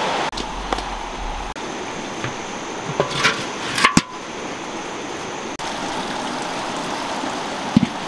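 A large iron wok being handled: a few knocks, then a sharp metallic clank with a short ring about four seconds in, and two more knocks near the end, over the steady rush of river water.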